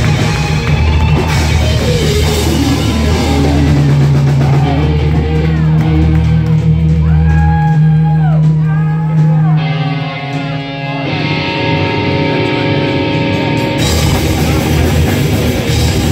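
Live heavy rock band playing loud: electric guitars, drums and bass, with held notes bending up and down. The cymbals drop out for a few seconds about two-thirds through, then the full band comes back in near the end.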